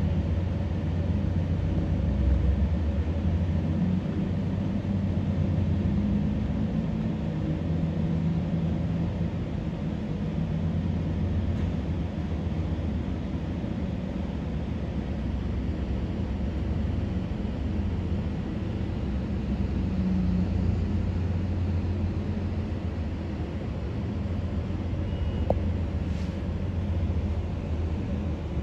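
CSX diesel freight locomotives passing, their engines a steady low rumble.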